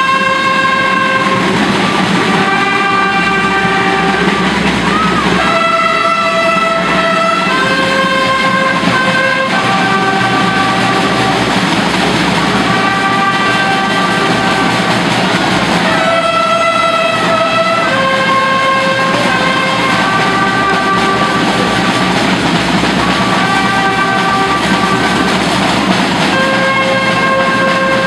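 Procession band playing a slow march: a single melody of long, steady held notes that change pitch every second or two, over a continuous noisy background.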